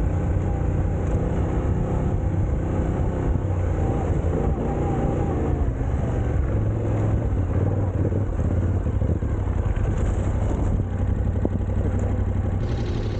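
Motorcycle engine running steadily while riding on a rough dirt road.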